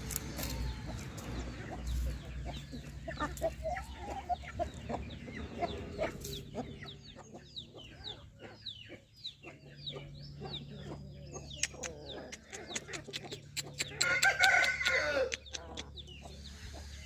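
Aseel chickens clucking, with many short high chirps in the middle and one rooster crow about fourteen seconds in, the loudest sound.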